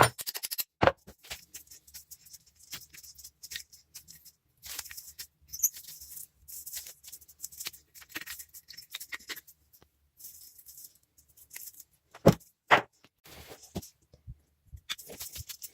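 Metal parts of a small vise being handled and worked: irregular scraping and rattling, with a few sharp metal knocks, one about a second in and two close together near the end.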